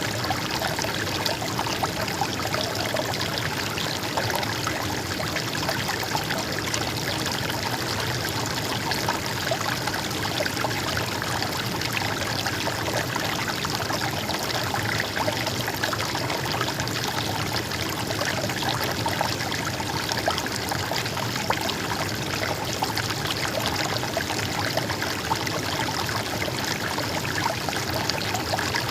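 River water flowing and trickling steadily, an even babbling rush with no breaks.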